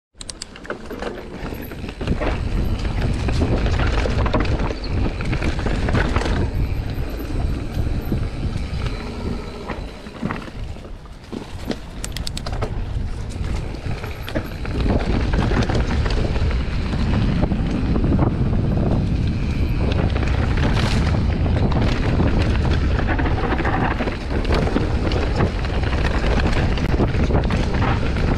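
Trek full-suspension mountain bike riding down a dirt forest trail: tyres rumbling over dirt, roots and stones, with the frame, chain and suspension rattling, and wind buffeting the microphone. The noise eases for a few seconds around the middle, then is steady and loud again.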